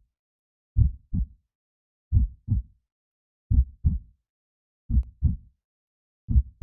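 Heartbeat sound effect: a slow, steady lub-dub, each beat a pair of short low thumps, repeating about once every 1.4 seconds, five beats in all.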